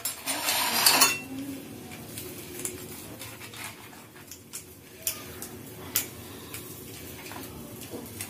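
A knife cutting a crisp paratha on a ceramic plate, the blade scraping and clicking against the plate. There is a longer, louder scrape about a second in, then scattered single clicks.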